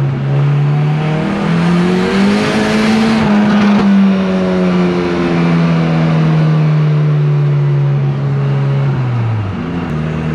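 Turbocharged Volvo engine heard from inside the cabin, revving up hard over the first couple of seconds, held high with a rushing hiss that cuts off suddenly, then easing down slowly and dropping away near the end. The engine is one the owner calls badly worn out.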